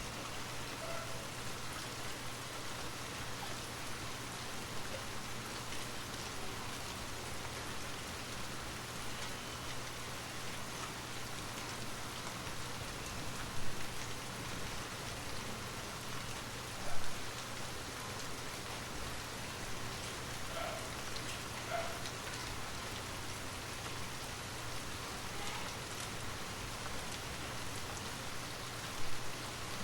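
Steady rain falling, an even hiss with a low steady hum beneath it, broken by a few short louder taps: one in the middle, one a few seconds later, and one near the end.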